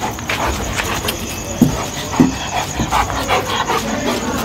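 Two dogs play-fighting, making short low vocal noises, two of them louder about a third and halfway through.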